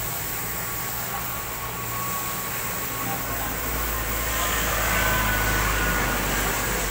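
High-pressure water spray hissing against a car's body. A low hum comes in about three seconds in, and the spray grows louder toward the end.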